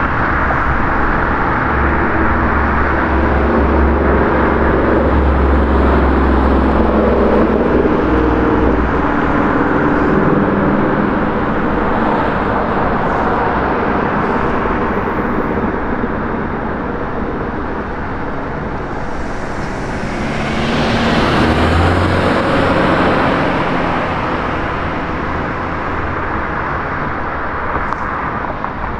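Road traffic: engines running steadily with tyre noise, and one vehicle passing more loudly about two-thirds of the way in.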